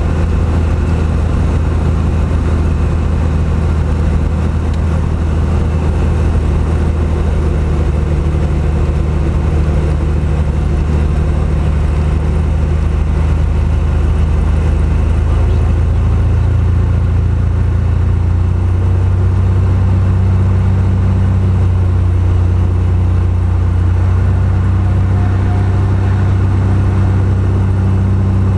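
Cessna R182 Skylane RG's single piston engine and propeller droning steadily, heard inside the cabin; the pitch rises slightly about two-thirds of the way through as the power or RPM changes.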